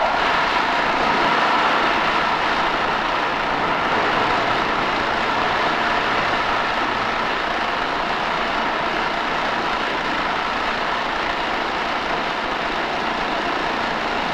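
Industrial meat bowl cutter running: a steady machine whir with a faint hum as the rotating bowl and blades chop meat.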